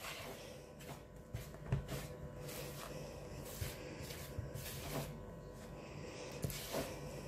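Spoon stirring flour and liquid into a stiff dough in a bowl: soft scraping with scattered light knocks of the spoon against the bowl every second or so.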